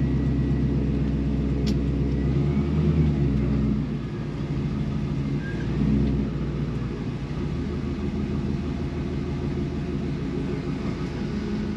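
Gen III 6.0 L LS V8 of a 1957 Chevy pickup running at low revs, heard from inside the cab as the truck starts to move off; the engine note shifts about three seconds in and rises briefly about six seconds in.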